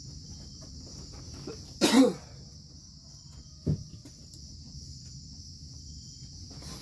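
Steady high-pitched drone of insects from the surrounding rainforest, with a single cough about two seconds in and a brief thump a couple of seconds later.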